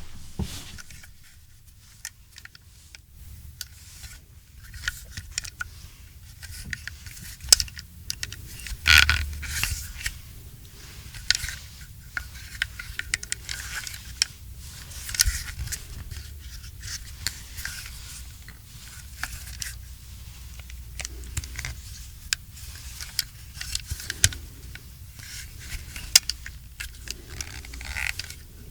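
Gun-handling foley: a long run of sharp metallic clicks, rattles and scrapes, with one longer, louder burst about nine seconds in.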